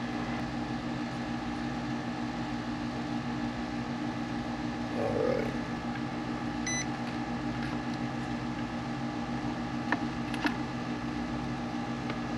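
Long Wei PS-3010DF lab power supply humming steadily after being plugged in. A short electronic beep comes about halfway through, and two sharp clicks near the end.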